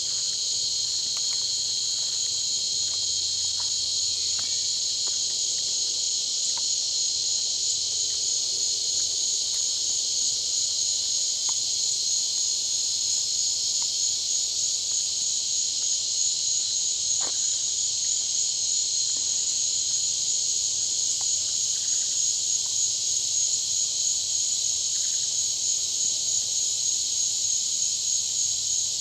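A steady, high-pitched chorus of insects buzzing continuously without breaks.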